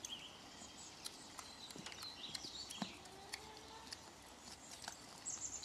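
Faint, scattered footfalls of a donkey's hooves stepping on soft, mucky ground, with small knocks.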